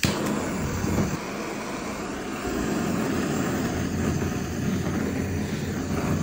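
Handheld butane torch head on a butane canister, catching suddenly and then burning with a steady rushing hiss of the flame jet.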